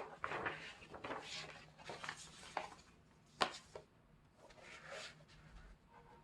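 Hands handling a K-pop CD album's card and paper packaging: a run of rustling, sliding swishes with a few light taps and one sharp click about three and a half seconds in.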